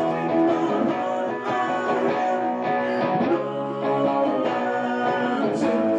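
Live rock music: a single-cutaway electric guitar plays chords that ring on steadily.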